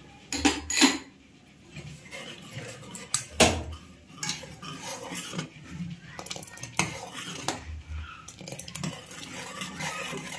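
Metal ladle stirring thick porridge in an aluminium pressure cooker, knocking and scraping against the pot several times, with the loudest knock about three seconds in.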